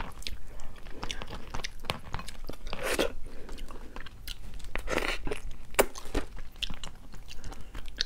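Cooked slipper lobster shell being pulled apart by hand and mouth chewing, heard close up: a run of sharp clicks and crunches, with louder cracking bursts about three and five seconds in.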